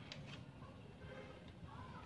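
A few faint, light clicks of hand tools on the bare engine's studs and pistons, over a low steady room hum.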